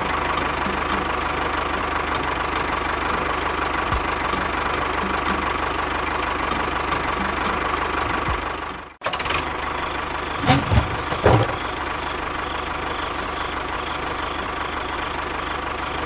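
A tractor engine running steadily with a knocking chug. It cuts out briefly about nine seconds in, then resumes, with a couple of knocks a second or two later.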